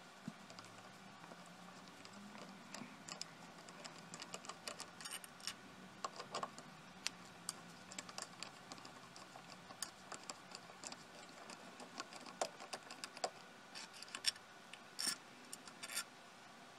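Small irregular metal clicks and ticks of a hand tool working the screws out of a laser head's finned metal cover, a few sharper clicks in the second half, over a faint steady hum.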